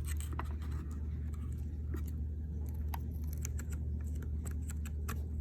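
Scattered light ticks and rustles of screen mesh being handled and tucked back against the door frame, over a steady low hum.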